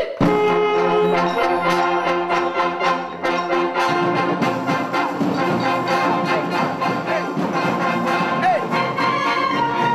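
A wind band of flutes, saxophones, brass and percussion playing together: the full ensemble comes in at once at the start, then holds sustained brass chords over a steady beat of drum strokes.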